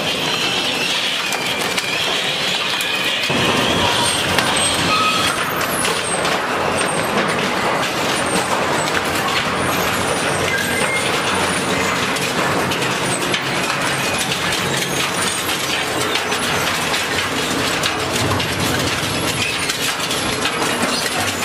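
Double-shaft metal shredder running, its cutter shafts tearing and crushing scrap sheet metal: a dense, continuous crunching and clattering. A low rumble joins about three seconds in.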